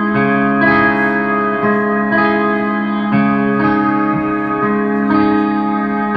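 Black metal band playing live: electric guitars hold sustained chords that change about every half second to a second, at a steady loud level.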